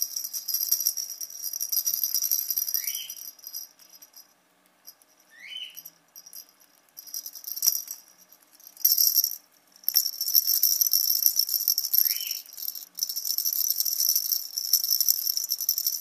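Hollow plastic parrot-toy balls rattling and jingling with a small bell inside as they are shaken, in stretches with a quiet gap in the middle. Three short high chirps from an African grey parrot come through, one each near 3, 5.5 and 12 seconds in.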